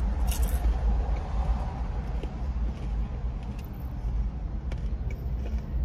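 Steady low rumble of an idling car heard from inside the cabin, with a few faint clicks and a brief rustle of eating near the start.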